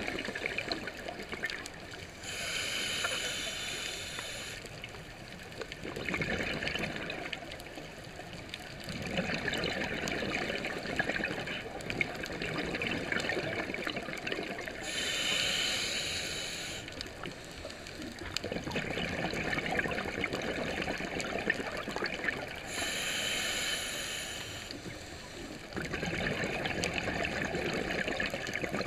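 Scuba diver breathing through a regulator underwater: three hissing inhalations about eight seconds apart, each followed by a long crackling rush of exhaled bubbles.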